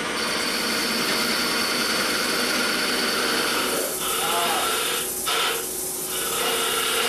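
Steady rushing whoosh of woodshop machinery running. About four seconds in the noise thins and changes, with a couple of brief dips.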